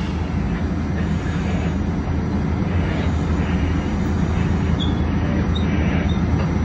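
Steady low rumble inside a New York City subway train in a tunnel, with a few short high squeaks about five seconds in.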